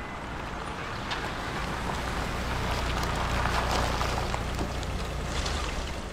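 Škoda Octavia estate driving slowly over a snowy, muddy dirt track: engine rumble and tyre noise growing louder as it approaches, loudest about three to four seconds in, then easing off as it pulls up and stops.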